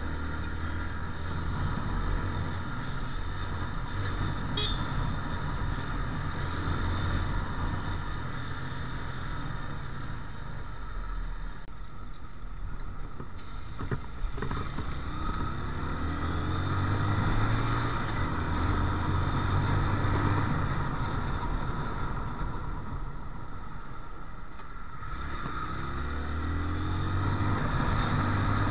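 Small motorcycle engine running under way, with steady wind and road noise. The engine note rises as it accelerates about halfway through and again near the end.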